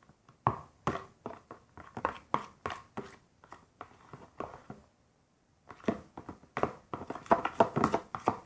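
A spoon stirring a mix of hair gel and water in a pot, with irregular clicks and scrapes a few times a second and a short pause about five seconds in.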